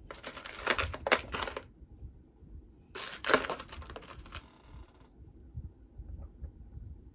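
Handling noise from jewelry being picked up and moved: two bursts of rustling and clicking, one at the start and one about three seconds in, each lasting about a second.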